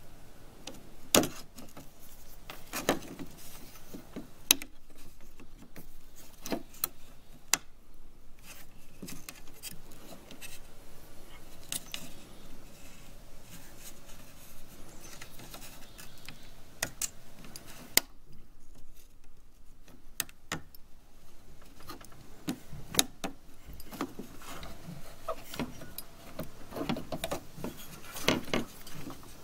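Irregular metallic clicks and clinks of pliers working the metal retaining clip and the lock cylinder out of an exterior door handle, with handling noise between.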